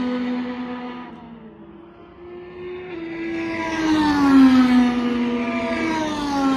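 IndyCar twin-turbo V6 engines at racing speed. One car's note drops in pitch and fades away over the first two seconds. A second car then approaches and goes by about four seconds in, its pitch falling as it passes.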